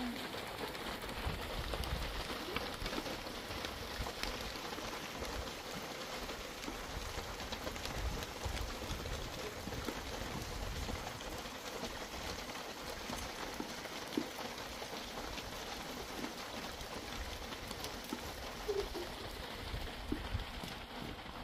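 Steady rain falling, with many small drop hits scattered through an even hiss.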